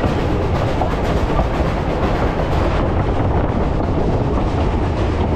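Narrow-gauge heritage railway train running along the track: a steady, loud rumble of wheels on the rails.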